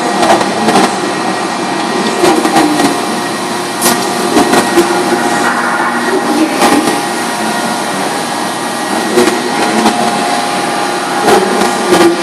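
Industrial paper guillotine cutter running with a steady machine hum, overlaid by irregular knocks and clacks as paper stacks are handled and worked on the cutter table.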